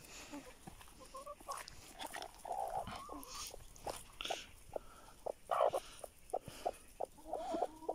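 Chickens clucking softly and intermittently while feeding on the ground, with a longer warbling call near the end and many short ticks scattered throughout.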